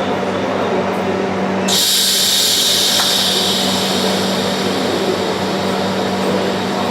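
Orbital TIG weld head welding titanium tube. A steady high hiss starts abruptly about a second and a half in and holds steady over a constant machine hum.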